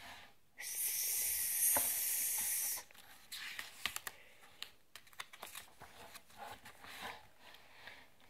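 A person's mouth-made "ssssss" hiss, held for about two seconds, imitating a spray can's hiss. It is followed by the rustle and small clicks of a book's paper page being handled and turned.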